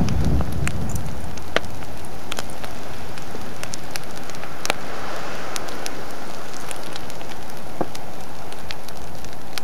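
Explosive lava ocean entry on a collapsing lava bench: a steady rushing roar with many scattered sharp cracks and pops as molten tephra is blasted out. A low rumble from a blast fades away in the first second.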